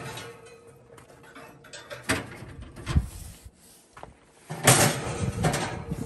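Metal barbecue grill grates clanking and scraping as they are handled inside the grill: a few scattered clicks, then a louder run of rattling strokes about five seconds in.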